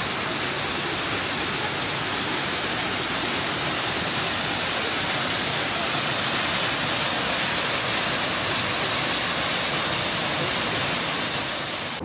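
Nunobiki Falls pouring down: a steady, even rush of falling water.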